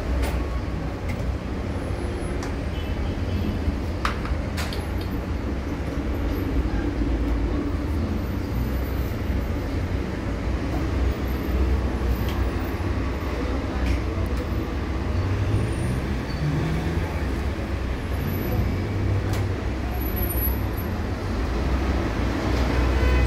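Steady low rumble of background noise, with a few sharp light clicks of metal parts and screws being handled.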